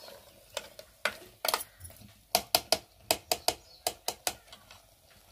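Metal ladle clinking against the side of a metal cooking pot as the dry chicken masala is stirred. A few separate clinks come first, then a quick run of sharp metallic taps, several a second, in the middle.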